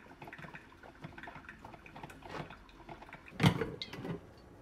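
Glass coffee carafe and mug being handled at a drip coffee maker on a stone countertop: one sharp knock about three and a half seconds in, then a lighter one half a second later, over faint handling sounds.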